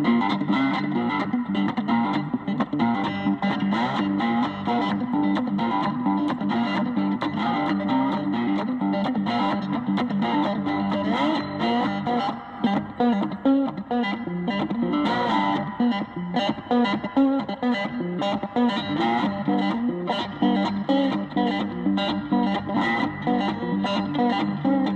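Background music led by guitar, with a steady beat.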